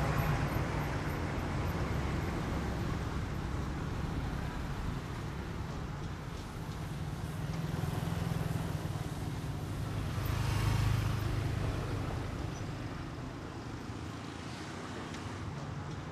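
Steady street traffic noise, with one vehicle passing and swelling louder about ten seconds in.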